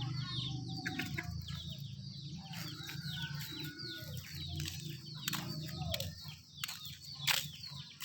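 Many birds chirping busily: rapid short calls that slide downward in pitch, over a steady low hum.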